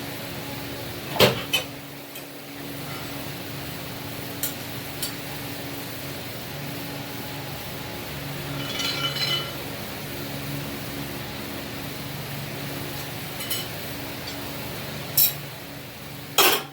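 Small metal pieces clinking now and then: several sharp clinks spread out, loudest about a second in and near the end, with a brief ringing around the middle, over a steady low hum.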